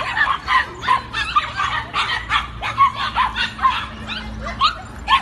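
A litter of puppies yipping and whining: a steady run of short, high yelps, several a second, overlapping one another.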